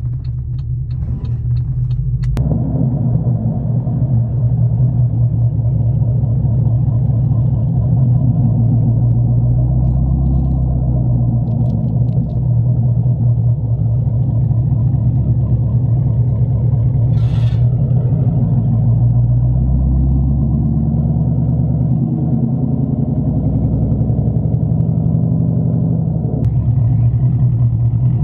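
Straight-piped V8 exhaust of a Holden Commodore VE SS wagon, a 3-inch stainless system with the mufflers removed, running loud and steady as the car drives along. It is heard from a camera rig outside the car, with wind buffeting the microphone, and there is one short sharp noise about seventeen seconds in.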